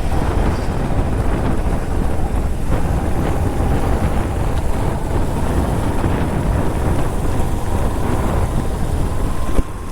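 Motorcycle on the move: the engine runs steadily under wind rushing over the microphone.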